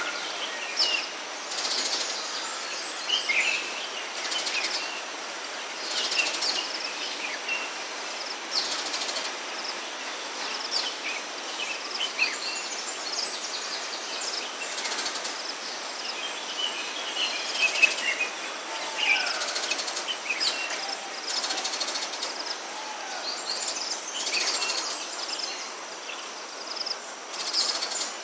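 Wild birds chirping and whistling, many short calls with a few gliding notes, over a steady high hiss of ambient forest sound.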